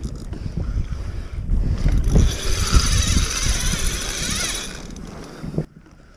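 A trolling reel's ratchet buzzing for about three seconds as a hooked fish pulls line off, over wind and handling rumble on the kayak. The sound stops sharply near the end.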